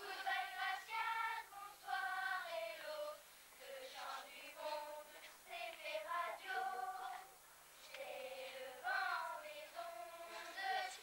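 A group of schoolchildren singing a song together as a choir, in phrases of held notes with short pauses between them.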